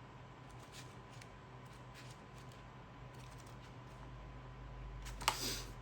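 Faint rustling of paper as an oracle deck's guidebook is handled, with a few soft ticks and a louder rustle and click about five seconds in.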